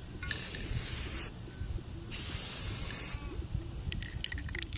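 Aerosol spray-paint can sprayed in two short bursts of hiss about a second each, followed near the end by a quick run of light clicks.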